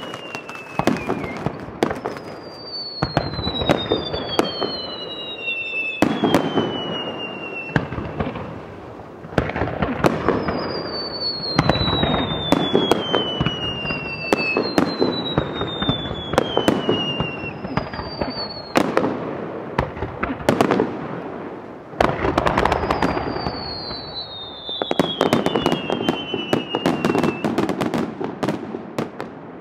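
Fireworks display: aerial shells bursting in a steady string of sharp bangs, with several high whistles that each fall in pitch over two to three seconds.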